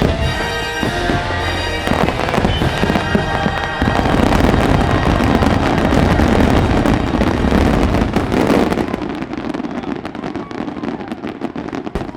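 Show music ends in the first few seconds, then a finale of fireworks goes off: rapid, overlapping bursts and crackling, loudest in the middle and thinning out over the last few seconds.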